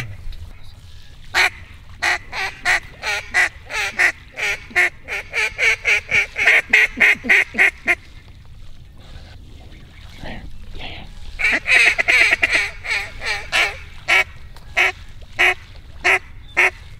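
Mallard duck call blown in long runs of short quacks, two strings of about twenty notes each with a pause between, calling circling ducks in to the decoys.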